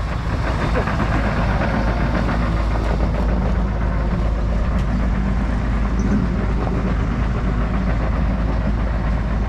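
Excavator's diesel engine running steadily as the machine moves off, a constant low rumble.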